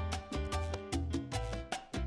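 Background music in a Latin, salsa-like style, with a bouncing bass line and quick, regular percussion hits.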